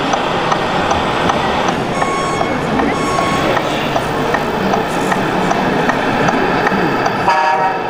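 Busy exhibition-hall din: many visitors' voices blended into a steady crowd noise, with a couple of short beeping tones a few seconds in and a brief horn-like tone near the end.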